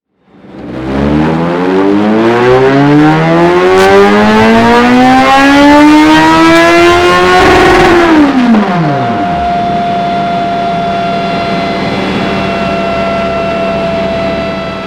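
BMW K1200R inline-four with a Dominator aftermarket exhaust making a full-throttle dyno pull, the engine note rising steadily for about six seconds. The throttle then shuts and the revs fall quickly, leaving a steady hum.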